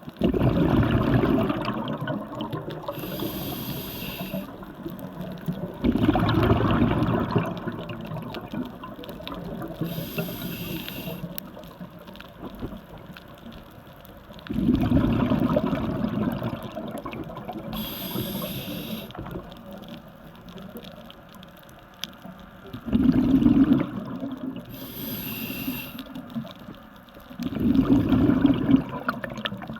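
Scuba diver breathing through a regulator underwater: a high hiss on each inhale, then a louder low rush of exhaled bubbles, in a slow cycle about every eight seconds.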